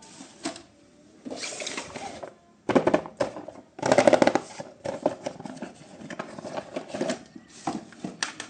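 Plastic toys and packaging being handled: several bursts of clattering and clicking, the loudest about three and four seconds in.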